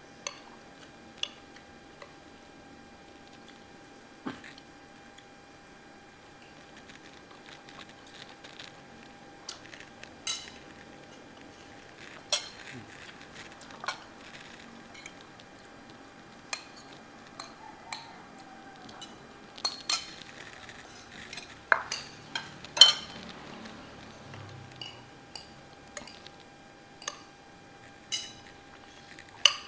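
Metal spoons clinking and scraping on ceramic plates as two people eat, in irregular separate clinks, the loudest cluster about two-thirds of the way through.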